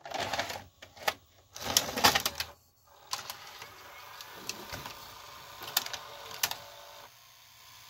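A VHS cassette is pushed into a 1992 Fisher FVH-4901 VCR with clunks of handling. The front-loading cassette carriage then runs with a steady mechanical whirr and several clicks, stopping about a second before the end.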